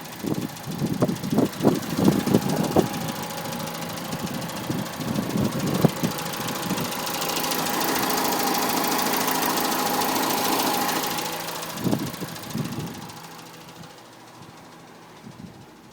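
A Citroën C2 VTS's 1.6-litre 16-valve petrol engine running with a tapping noise that the owner calls horrible and cannot place. Irregular knocks come in the first few seconds, the engine grows louder for a few seconds in the middle and then settles, and it fades down near the end.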